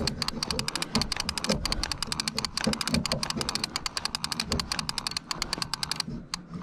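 Conventional saltwater trolling reel ratcheting in fast, even clicks as its handle is cranked to reel in a heavy halibut. The clicking stops about six seconds in.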